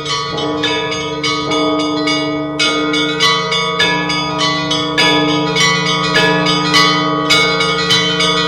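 Church bells ringing: quick, repeated strikes of smaller bells over the long, sustained hum of larger bells. The strikes get denser and louder about five seconds in.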